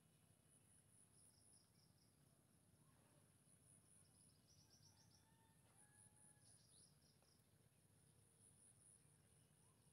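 Near silence: faint background ambience with an insect's high trill coming and going in short pulses, and a few faint bird chirps.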